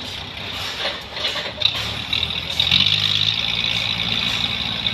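An engine running steadily with a high whine over it; its note shifts and gets a little louder about three seconds in.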